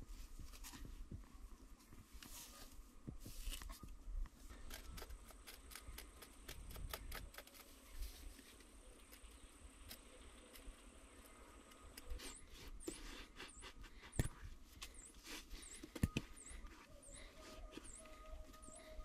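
A metal hand blade scraping and tapping against packed clay earth in short, irregular strokes. From a little past the middle, a bird chirps over and over, a short high call about once a second.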